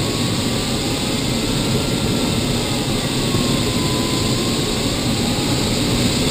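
Steady rush of air over a glider's canopy in flight, with a thin electronic tone from the audio variometer drifting slowly up and down in pitch as the climb or sink rate changes.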